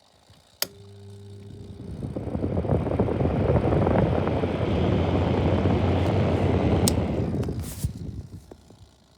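Unbranded 12-inch plastic box fan switched on with a click: its motor hums and the rush of air builds over about two seconds to a steady level. About seven seconds in another click switches it off, and the air noise fades away as the blades spin down.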